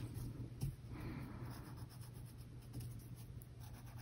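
Faint scratching of a colour pencil drawn across Essex homespun fabric as lines are traced, over a low steady hum.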